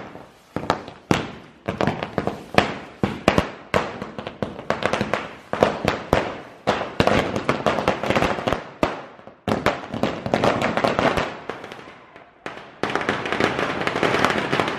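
Firecrackers going off on a road: a rapid run of sharp bangs with crackling between them, turning into a dense, continuous crackle about thirteen seconds in.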